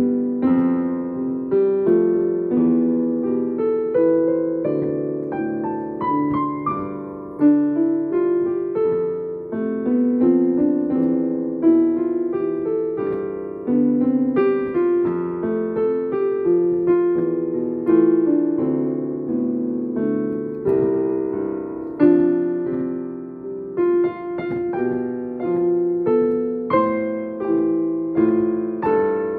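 Electronic keyboard played in a piano voice with both hands: a continuous flow of notes and chords, mostly in the middle range.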